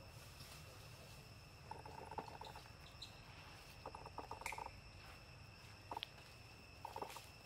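Faint forest ambience: a steady high-pitched insect drone, broken four times by short bursts of rapid pulsed animal calls.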